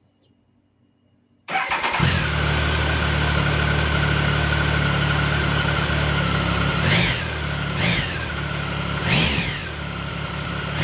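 Triumph Tiger 1050's inline three-cylinder engine starting from cold, catching about one and a half seconds in and settling into a steady fast idle with a constant whine. Near the end the throttle is blipped three times, each rev rising and falling quickly.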